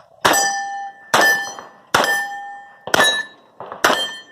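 Five revolver shots fired about one a second, each followed by the ringing of a steel target being hit.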